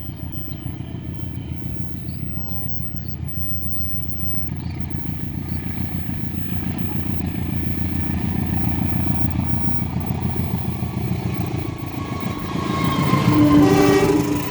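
Diesel-hauled passenger train approaching the level crossing, its low engine and wheel rumble growing steadily louder. A loud horn sounds for about two seconds near the end.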